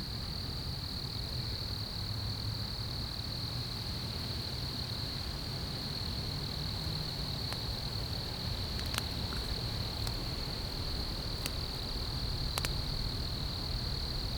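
Steady, high-pitched insect trill running unbroken, over a low rumble, with a few faint clicks in the second half.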